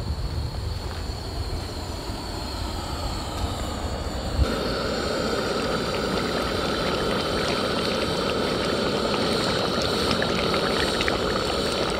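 A steady low rumble, then about four seconds in an abrupt switch to louder sound of a thick crab curry simmering in a pot over medium heat: continuous bubbling with many small pops and spits.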